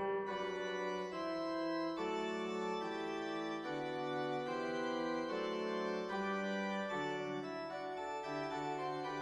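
Background music of slow, sustained keyboard chords, organ-like, shifting to a new chord about every second or so.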